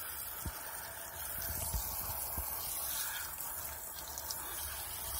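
Steady hiss of water spraying from a shower head and splashing onto concrete, fed hot through a propane tankless water heater.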